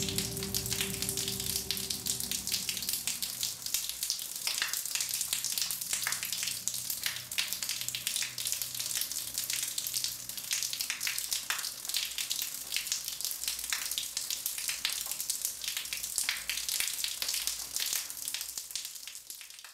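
Shower spray falling onto a tiled floor and a body, a dense crackling hiss of water. A held music chord fades out under it over the first few seconds.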